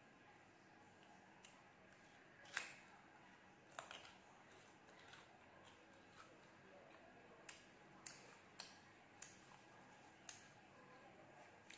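Faint chewing of crisp green ambarella fruit, heard as scattered sharp crunches and mouth clicks about a second apart over near silence.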